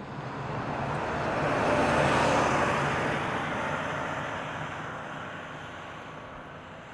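A bus drives past close by on a narrow paved road. Its engine hum and tyre noise swell to a peak about two seconds in, then fade steadily as it climbs away up the road.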